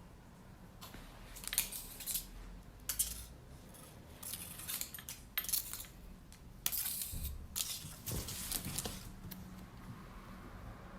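A cat's paws and claws scrabbling and clicking on a hard floor as it runs: a string of irregular short scrapes and clicks that thins out near the end.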